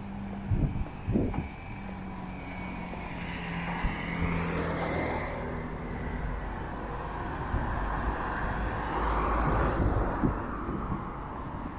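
Road traffic: two cars pass by, the first swelling and fading about four to five seconds in, the second around nine to ten seconds in. A few low thumps come in the first second or so.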